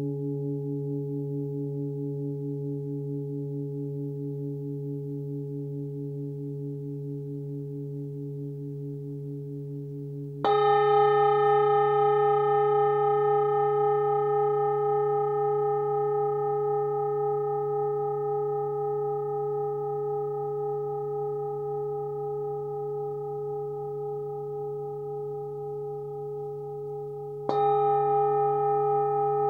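A 23.5 cm Nepalese singing bowl tuned to about 143 Hz (the note D) rings on from an earlier strike, slowly fading with a gentle wavering beat. It is struck again about ten seconds in and once more near the end. Each strike brings a bright ring of several overtones above its low hum.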